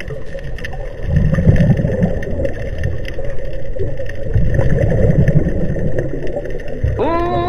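Underwater sound picked up through a camera housing: a steady murky hiss with two low, bubbling rumbles about three seconds apart, the sound of a scuba diver breathing out through a regulator. A singing voice comes in near the end.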